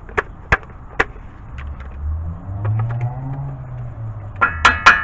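Metal tools and parts being handled: a few sharp clicks, then near the end a quick run of about half a dozen loud, ringing metallic taps. A low hum swells and fades in the middle.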